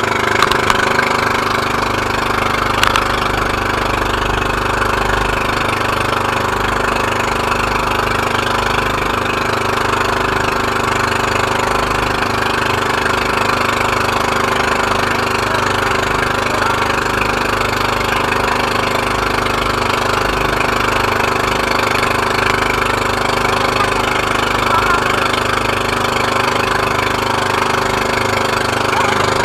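Engine of a motorized outrigger boat (bangka) running steadily underway, over a constant hiss of water and wind along the hull.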